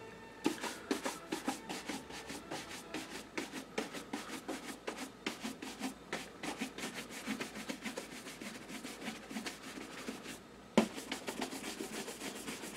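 Horsehair shoe brush worked briskly back and forth over a leather shoe: quick scratchy strokes, several a second, buffing the dried Saphir Renovateur so that the friction works its wax into the leather for a soft shine. The strokes pause briefly about ten seconds in, then a single sharp knock, the loudest sound, and the brushing resumes.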